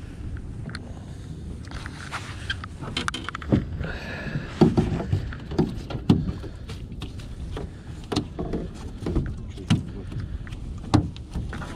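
Irregular thumps and knocks on a small boat, the loudest about a third of the way in, over a steady low rumble of the boat and wind.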